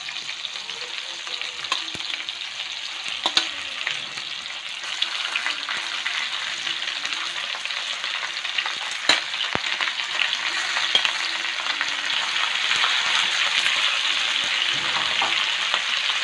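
Raw chicken pieces sizzling in hot oil in a nonstick wok with onion, tomato and lemongrass. The sizzle grows louder as more pieces go into the pan, with a few sharp knocks along the way.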